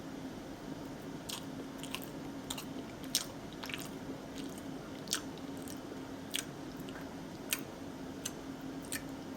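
A person chewing a mouthful of cheesy tater-tot nachos, with about ten short, crisp crunches and mouth clicks at irregular intervals, over a steady low hum.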